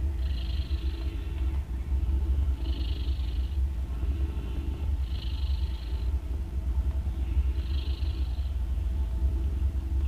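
Mother tabby cat purring with a steady low rumble while nursing her newborn kittens. About every two and a half seconds comes a loud, raspy snoring breath, four times in all.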